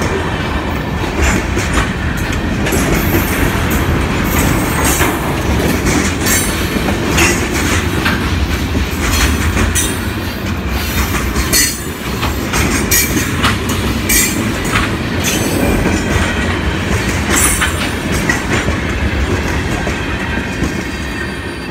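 Freight train of tank cars and covered hoppers rolling past close by: a steady rumble of steel wheels on rail, clicking over the rail joints, with frequent brief high-pitched squeals from the wheels. It starts to fade near the end as the last cars go by.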